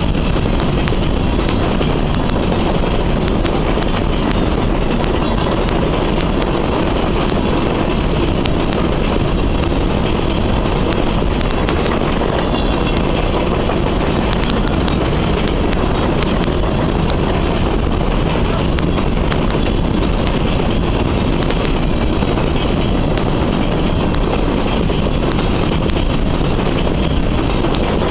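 Covered hopper cars of a freight train rolling past: a steady rumble of steel wheels on rail, with scattered sharp clicks.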